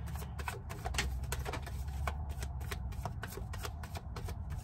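A deck of tarot cards shuffled by hand: a quick, irregular run of light card slaps and clicks.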